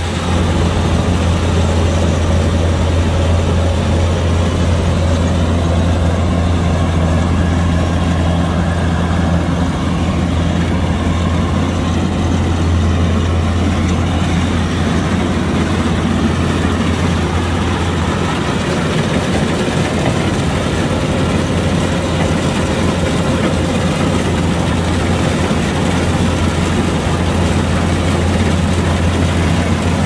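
Kubota DC-105X combine harvester's diesel engine running steadily with a deep, even hum.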